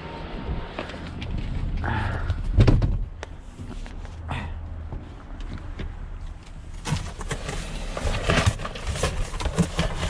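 Pieces of scrap metal clinking and clattering as they are handled in a box, with one heavier knock about three seconds in and a quicker run of rattling near the end.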